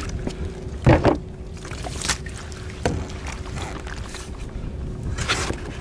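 Knocks and thumps on a yacht's deck, the loudest about a second in and a few smaller ones after, over a low steady rumble.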